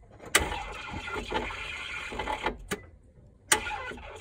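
Nissan 350Z failing to start: a sharp click, about two seconds of noise, then another click, and the same click and noise come again near the end. The owner suspects a failed starter.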